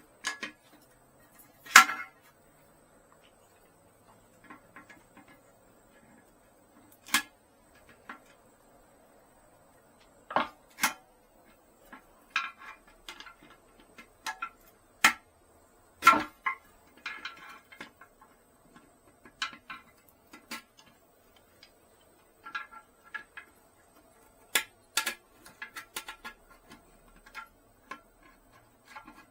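Scattered clicks, knocks and short clinking rattles of hard plastic and porcelain toilet-tank parts being handled, as the old flush valve is worked loose for removal. The sharpest knocks come about 2 s and 16 s in.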